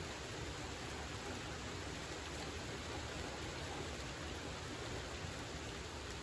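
Steady rain falling during a thunderstorm, an even hiss with no thunderclap.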